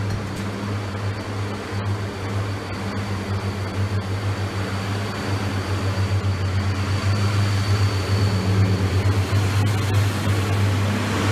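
Class 143 Pacer diesel multiple unit running past at close range: a steady low engine drone with rail and wheel rumble that grows louder over the last few seconds.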